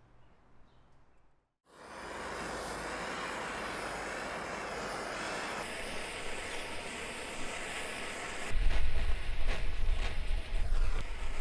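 Handheld gas blowtorch on a gas cartridge burning with a steady hiss as its flame scorches the inside of wooden flute chambers. From about eight seconds in, a louder, uneven low rumble joins the hiss.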